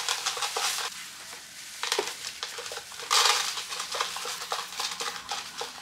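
Dry dog kibble clattering in a bowl as a mame shiba inu eats, crunching pellets and pushing them around. Dense rattling near the start and again from about three seconds in, with scattered clicks in between.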